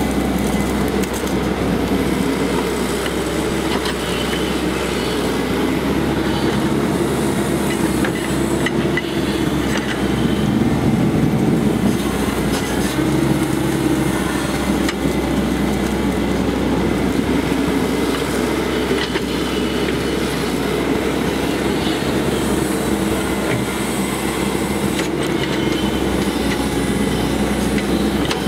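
Cat 312C hydraulic excavator's diesel engine running steadily under working load, with a low hum, as it digs silt out of a trench.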